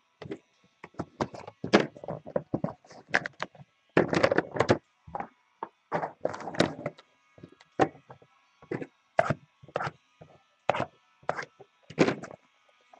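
Shrink-wrapped trading-card boxes being handled and unwrapped on a table: an irregular run of knocks, scrapes and crackling of plastic wrap and cardboard.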